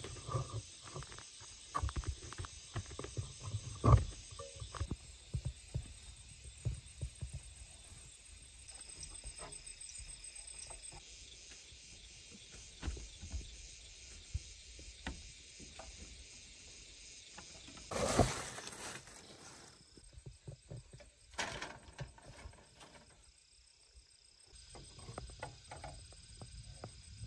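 Irregular small clicks and knocks of wire being twisted and tightened around bamboo poles, with a sharper knock of bamboo about four seconds in and a brief rustling burst near the middle. A steady high hiss runs underneath.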